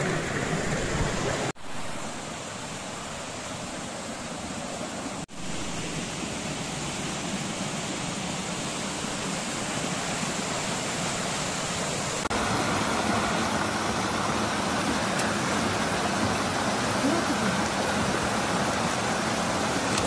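Rushing water of a forest stream and small waterfall: a steady hiss whose loudness and tone shift abruptly three times.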